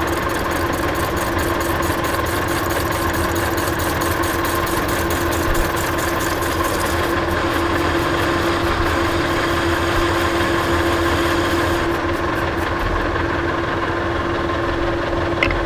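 Monarch Model K lathe running with a steady hum while the tool cuts an inner chamfer in a steel part, with a fine rapid rattle that thins about halfway through and fades about 12 seconds in. The sound cuts off suddenly at the end.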